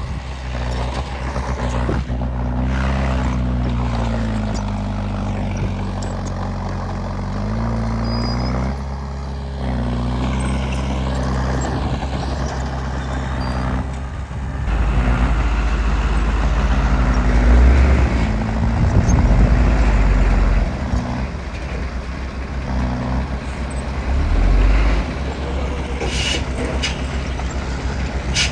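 Heavy diesel engine of earthmoving machinery working, its pitch dropping and climbing back several times as it is throttled, with louder stretches near the middle and a few sharp knocks near the end.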